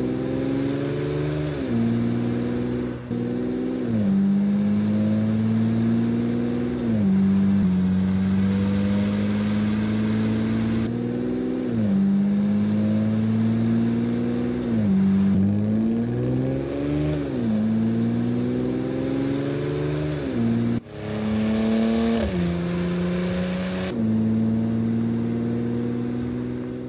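Porsche Macan engine accelerating: the note climbs with the revs and drops at each upshift, again and again, with a few abrupt breaks where shots are cut together.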